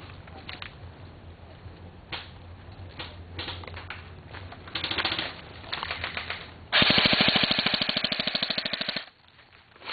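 Airsoft gun firing on full auto: a short rapid burst about five seconds in, then a louder, even rattle of fast shots lasting about two seconds that cuts off abruptly.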